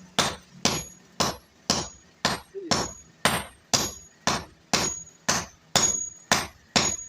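Hand hammer striking iron on an anvil in steady forging blows, about two a second, some leaving a short high ring.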